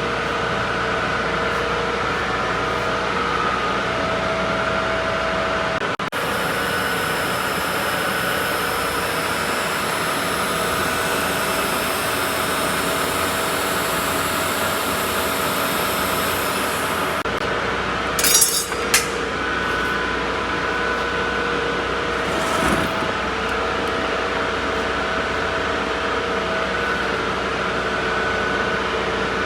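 Argon (TIG) welding: a steady machine hum throughout, with an added hiss that switches on about six seconds in and cuts off about seventeen seconds in. A couple of sharp metallic clinks follow about a second later.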